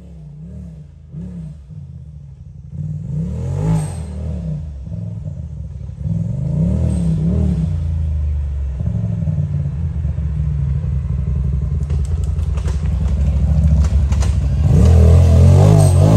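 Side-by-side UTV engine revving in repeated surges, pitch rising and falling over and over as it climbs a hill, growing louder toward the end. Some clattering comes in the second half.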